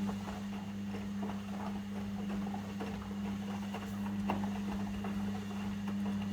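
Logik L712WM23 washing machine running with a steady electric hum, water pattering and small clicks over it, which cuts off suddenly near the end.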